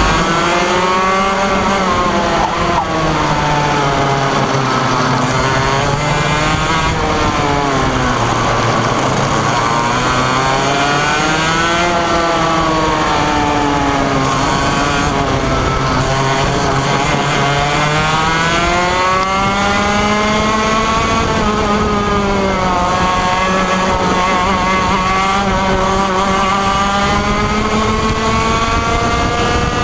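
Onboard sound of a 125cc two-stroke racing kart engine at full race pace, its pitch climbing along each straight and falling away under braking for the corners, several times over.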